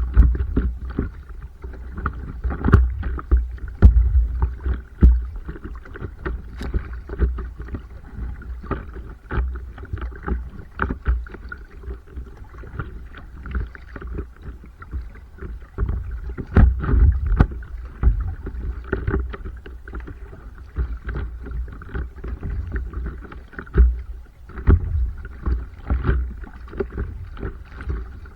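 Stand-up paddleboard on open water: paddle strokes and water splashing and slapping against the board, with irregular knocks and a heavy low rumble throughout.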